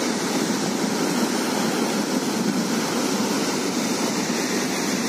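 Floodwater rushing steadily out through a dam's open sluice gates and churning in the spillway channel below.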